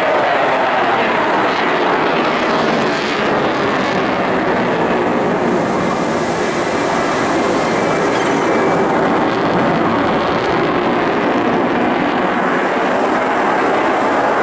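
Eurofighter Typhoon's twin Eurojet EJ200 turbofans giving a loud, steady jet roar during its flying display.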